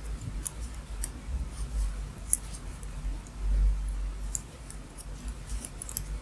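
Light clicks and ticks of double-pointed knitting needles working stitches during a plain bind-off, over a low handling rumble that swells about halfway through.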